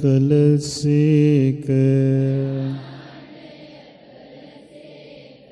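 A Buddhist monk chanting in Sinhala, a slow melodic recitation of the Buddha's virtues with long held notes. The phrase ends just under three seconds in and leaves a faint hush.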